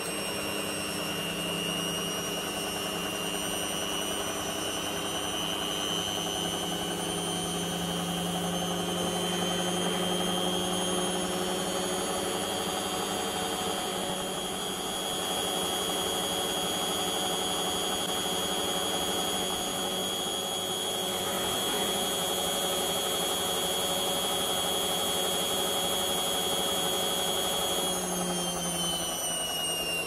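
Aldi front-load washing machine spinning its drum: a steady motor whine made of several tones that creep slowly up in pitch, then fall away about two seconds before the end as the drum slows.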